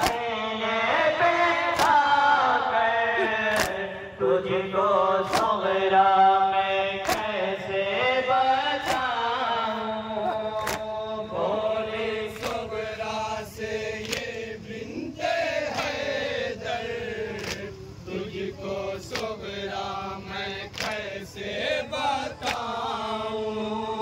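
Male voices chanting a nauha, a Shia mourning lament, with sharp chest-beating slaps (matam) keeping time, about every second and a half at first and closer together in the second half.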